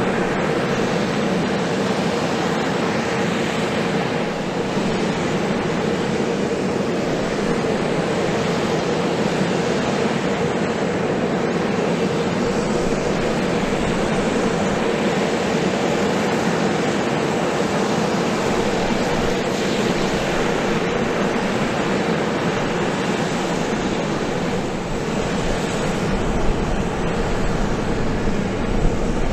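Aircraft turbine running steadily on the ground: a constant rush with a steady hum underneath and no change in pitch.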